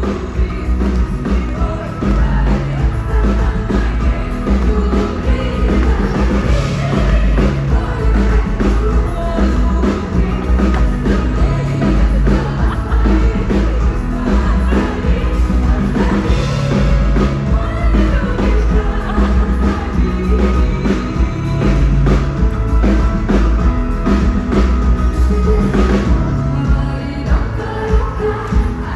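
Live rock band playing a song with singing, over heavy bass and a steady drum beat.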